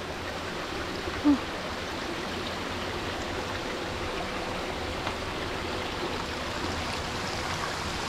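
Shallow mountain stream flowing over rocks below a small waterfall: a steady wash of water.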